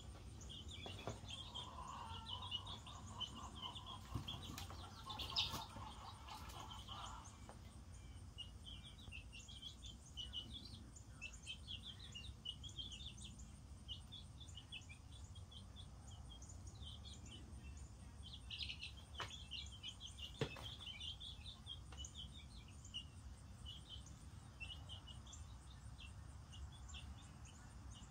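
A flock of young chicks, a couple of weeks old, peeping: many short, high chirps overlapping throughout, over a faint low rumble, with a few sharp taps.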